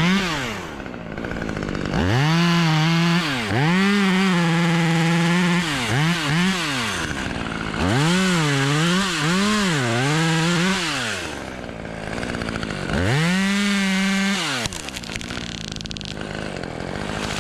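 Two-stroke chainsaw revving to full throttle in several long bursts, its pitch sagging and recovering as it bites into the wood, dropping back to idle between bursts and for the last few seconds. It is cutting an open-face notch in a limb being felled.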